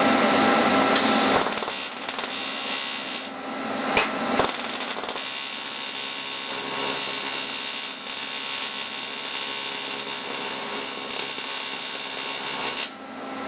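TIG welding arc buzzing and hissing steadily while brazing with bronze filler rod. The arc strikes about a second in, stops briefly for about a second, then restarts and runs about eight seconds before cutting off sharply near the end.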